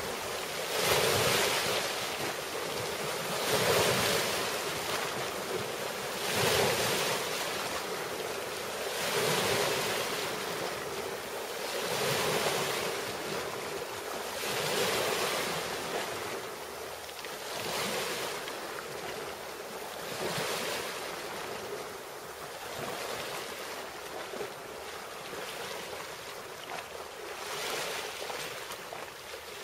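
Waves washing in: a rushing surge that swells and fades about every three seconds.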